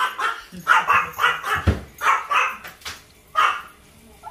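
Yorkshire terrier barking in a quick series of high-pitched yaps, dying down near the end.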